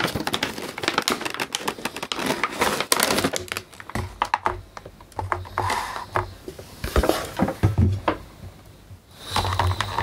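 Cardboard box being opened by hand and a clear plastic tray of bagged accessories handled, with rapid clicking and scraping of cardboard and plastic for the first few seconds, then sparser clicks and plastic-bag rustling.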